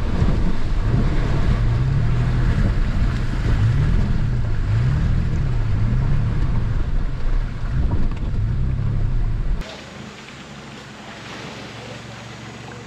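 Off-road 4x4's engine running under load as it crawls through a shallow stream, its note rising and falling repeatedly. About nine and a half seconds in it cuts off abruptly to much quieter outdoor background noise.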